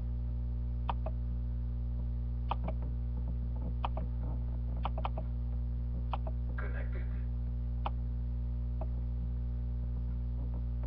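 Steady electrical mains hum, with sharp single clicks scattered about a second apart.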